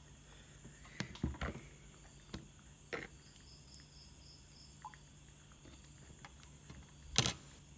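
Knife and fork on a plate as a steak is cut: a few scattered clicks and scrapes, then a louder sharp clack about seven seconds in.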